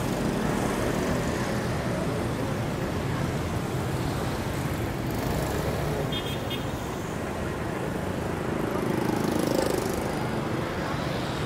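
Steady road traffic from passing vehicles, swelling as one passes close near the end.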